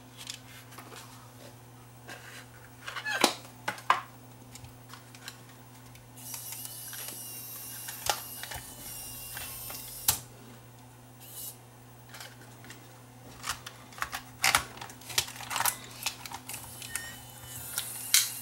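Scattered plastic clicks and knocks of a camcorder and a tape cassette being handled, over a steady low hum. A hissy whir with a faint wavering whine runs for a few seconds in the middle.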